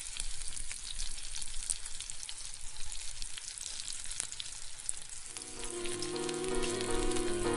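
Crackling sizzle like food frying in hot oil, a dense patter of tiny pops. About five seconds in, the instrumental's sustained chords fade in beneath it and grow louder.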